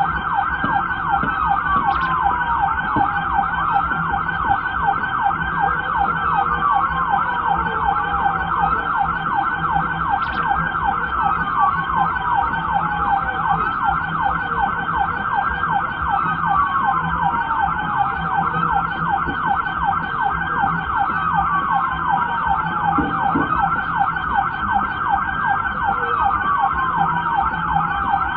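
Police car sirens running continuously: a fast yelp warbling without pause, overlapped by a slower wail that rises quickly and falls over about two seconds, repeating about every five seconds.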